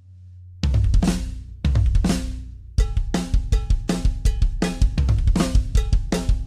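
Acoustic drum kit in a studio: two loud accented hits with cymbals washing out and fading, then from about three seconds in a steady groove of bass drum, snare and cymbal strokes.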